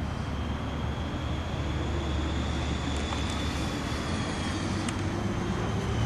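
Steady low rumble of road traffic, with a faint held whine and a few light clicks around the middle.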